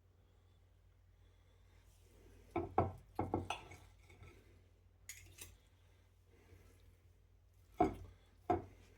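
Kitchenware being handled: a short run of knocks and clatters a few seconds in, then two sharp knocks near the end.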